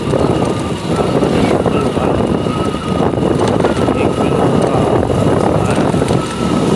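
Hero Splendor motorcycle running steadily at road speed, its engine noise mixed with wind rushing over the microphone, and a steady high whine underneath.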